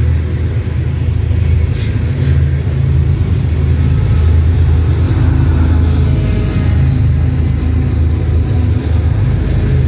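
GE ES44C4 diesel locomotives' V12 engines working under load, a steady deep rumble that grows louder about halfway through as the units come alongside a slowly rolling loaded hopper train. Two short sharp clicks come about two seconds in.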